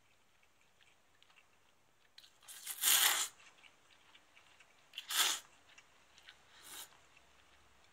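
Three noisy slurps of cold dipping broth (mentsuyu) sipped from a small glass cup, the first about two seconds in the longest and loudest, the next two shorter.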